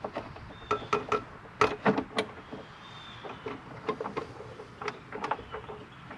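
Irregular light clicks and taps of a screw and screwdriver against an engine cover as the cover is fastened back on by hand.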